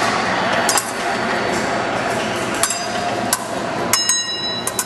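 Épée blades striking and clinking together: a few single metallic clinks, then a quick flurry of ringing blade contacts about four seconds in, over a steady background hum.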